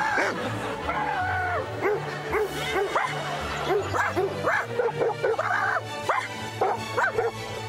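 Dog barking and yipping in quick short barks, about two or three a second, over background music with a steady bass line.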